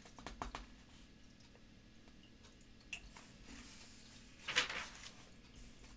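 Paper handling on a printed catalog: a few light crinkles as the page is gripped near the start, then a louder rustle of a page being turned about four and a half seconds in.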